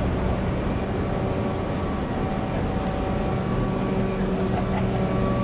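Steady drone of running machinery: a constant hum with several held tones over a rushing noise, unbroken throughout.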